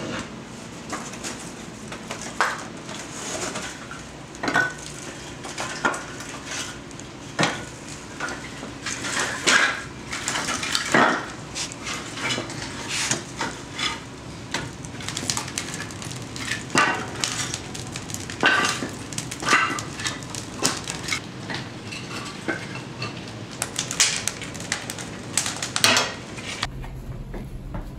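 Firewood being handled in a wood-fired oven's brick firebox: irregular clattering knocks of wood and metal, with the fire crackling underneath.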